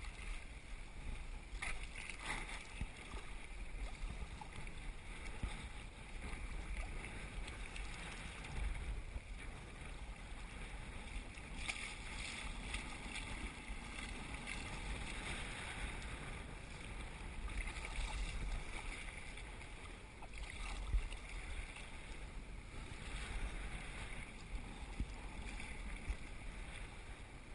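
Kayak paddle strokes and choppy, wind-driven water splashing and slapping against a kayak's hull, with wind rumbling on the microphone. A few louder splashes stand out.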